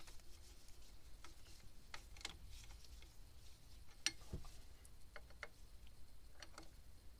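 Faint, irregular metal clicks and ticks of a 13 mm wrench working the nuts on a Yanmar 3YM30 diesel's adjustable belt bracket, with one sharper click about four seconds in.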